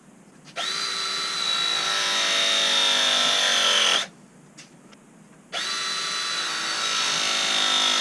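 ProPress pipe-pressing tool crimping copper fittings, two press cycles. Each time the motor runs for about three and a half seconds, its pitch sagging as the jaws close under load, then cuts off sharply. The second cycle starts about a second and a half after the first ends.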